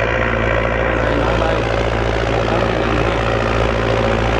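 Belarus 825 tractor's diesel engine running steadily while it tills the soil, with a constant drone that holds the same pitch throughout.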